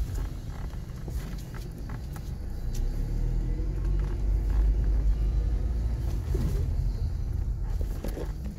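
Car driving: a steady low road and engine rumble that grows louder through the middle, with a few faint clicks.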